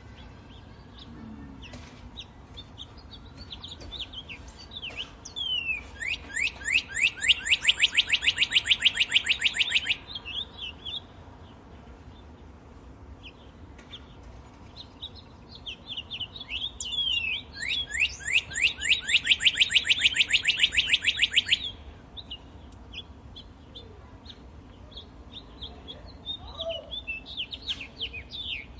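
Birdsong in a wood: one bird twice sings a long, rapid trill of quick down-slurred notes, each trill lasting about four seconds, with scattered short chirps from other birds in between.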